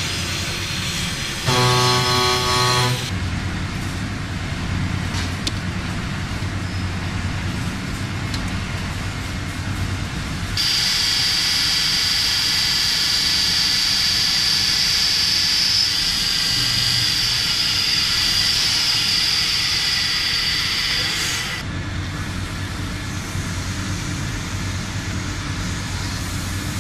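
A WFL M60 Millturn CNC machine cutting metal, a steady machining noise. A short pitched tone comes about two seconds in. From about eleven seconds in, a loud high cutting whine holds steady for about ten seconds, then gives way to duller machining noise.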